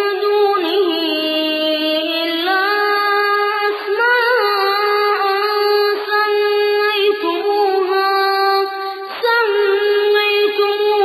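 A man's voice reciting the Quran in melodic tajweed chant, drawing out long held notes, with brief pauses for breath.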